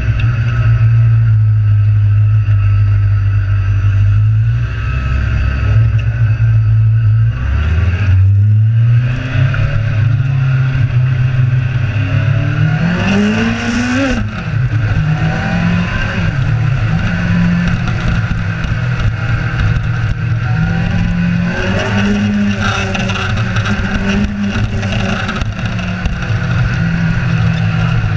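Kawasaki Z1000 inline-four motorcycle engine under way: a steady drone, then revving up in several rising sweeps to a peak about halfway through before the revs drop, then cruising at a fairly even pitch.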